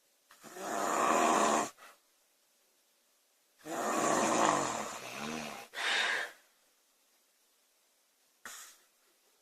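A girl snoring loudly in her sleep: two long snores about three seconds apart, each followed by a short breath sound, with a brief, fainter one near the end.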